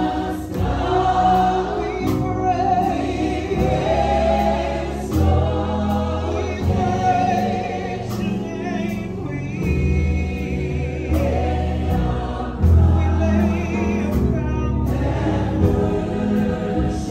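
Music: a choir singing over a bass line.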